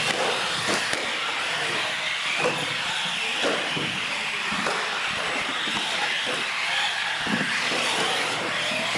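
Radio-controlled UTV trucks racing on a concrete floor: their small motors whine, rising and falling as they speed up and slow down, over a steady hiss of tyres, with now and then a short knock.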